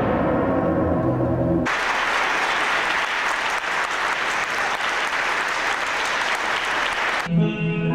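Audience applause for dancers taking their bows, cut in abruptly about one and a half seconds in after a stretch of the ballet's music. The applause cuts off just as abruptly near the end, when the music comes back in.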